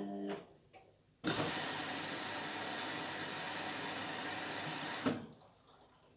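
Indesit washing machine: a steady hum cuts off just after the start, then a loud, even rushing noise starts suddenly about a second in and stops suddenly about four seconds later.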